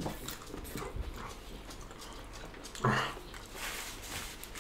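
A puppy's short whine about three seconds in, over faint clicks and rustles of hands eating off plates.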